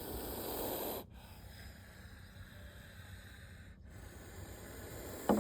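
A snake hissing: a breathy rush that cuts off sharply about a second in, then starts again near the end.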